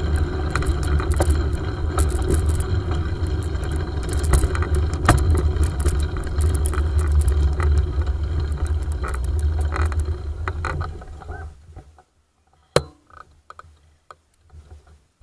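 Bicycle riding over a rough path, heard through a handlebar-mounted camera: a steady low rumble with constant small rattles and clicks. About eleven seconds in the rumble fades away, leaving one sharp click and a few faint ticks.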